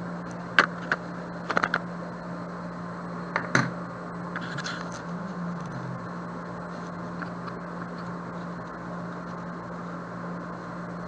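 A few sharp clicks and knocks as the opened calculator's parts are handled, bunched in the first four seconds, followed by a soft rustle, over a steady low hum.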